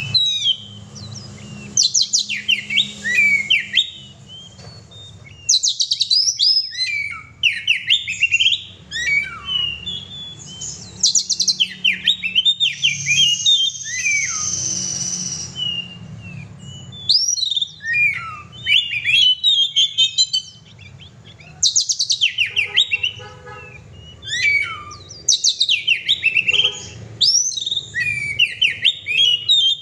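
Oriental magpie-robin singing loudly, in recurring bursts of rapid, varied whistled notes every few seconds, with short pauses between phrases.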